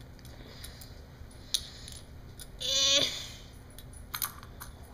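Light clicks of Beyblade parts being handled and fitted together by hand. About halfway through comes one short high-pitched sound lasting under half a second, the loudest thing, and a pair of clicks follows near the end.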